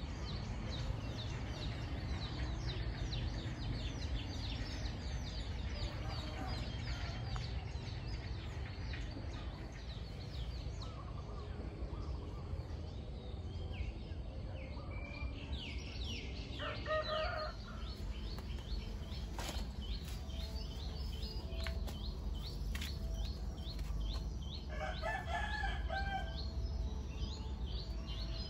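Village outdoor ambience: small birds chirping over and over, a rooster crowing about halfway through and again near the end, over a steady low rumble.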